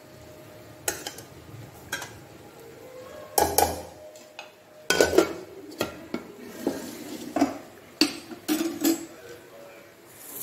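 Stainless steel ladle clinking and scraping against a steel cooking pot and a steel bowl while broth is ladled over rice: a series of irregular sharp clinks, some ringing briefly.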